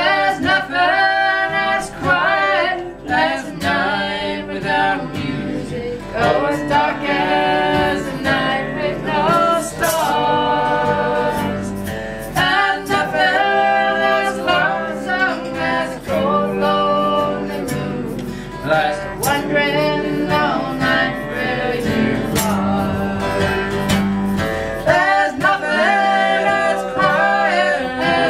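A woman singing with many held notes, accompanied on acoustic guitar.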